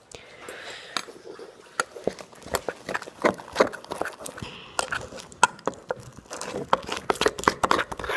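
Metal spoon clinking and scraping against a metal bowl while scooping out sticky marshmallow cream: quick, irregular clicks and scrapes that come thicker in the second half.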